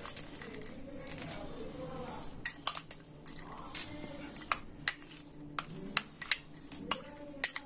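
Metal spoon clinking and tapping against a plate in a dozen or so sharp, irregular clicks that begin a couple of seconds in, as chopped roasted nuts are added to a dry mix of ground sesame and sugar.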